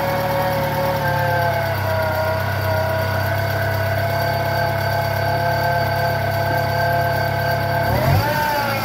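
Fiat Palio's 1.0 Fiasa four-cylinder engine idling steadily just after start-up, running on its replaced auxiliary (alternator) belt. Its pitch rises and falls briefly near the end, a short blip of the throttle.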